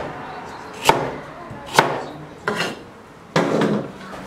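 A Chinese cleaver chopping red radish on a wooden cutting board: three sharp chops about a second apart, then a half-second scuff near the end.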